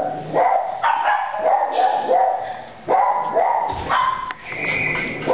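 Cavalier King Charles Spaniel puppy yapping and barking in quick, high-pitched runs, with a couple of short breaks; the puppy is upset at being moved into a new pen.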